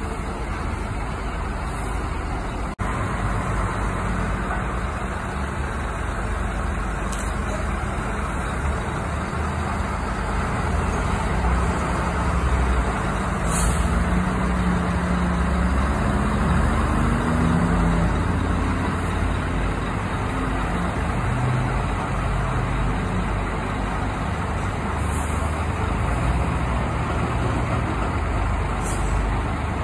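Diesel engines of long-distance coaches running and manoeuvring at low speed, with the engine pitch rising and falling midway as a bus pulls past close by. A few brief hisses come through over the engine noise.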